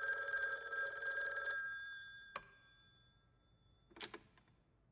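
Rotary-dial desk telephone's bell ringing once for about two seconds, then dying away. A sharp click follows, and near the end there is a brief clatter as the handset is lifted off the cradle.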